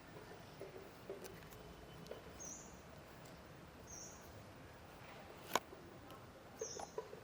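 An animal's three short, high chirps, a second or two apart, over faint background noise, with one sharp click about five and a half seconds in and a few soft knocks and rustles.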